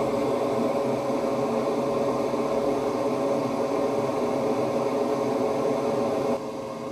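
4-inch booster duct fan exhaust running: a steady rush of air with a steady hum. About six seconds in it drops noticeably quieter.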